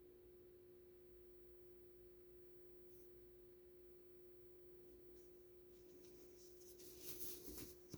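Near silence: a faint steady hum at one pitch, with a few faint clicks near the end.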